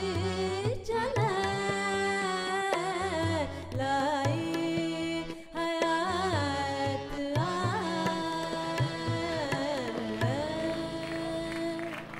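A woman singing a ghazal to tabla accompaniment, her voice winding through ornamented, sliding phrases and settling on one long held note near the end.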